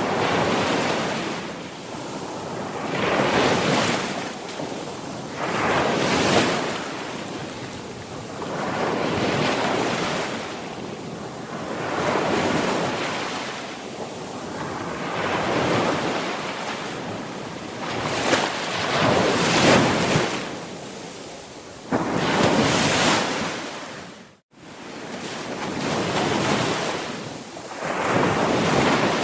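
Sea waves breaking and washing in, one swell about every three seconds. The sound drops out abruptly for a moment about five seconds before the end.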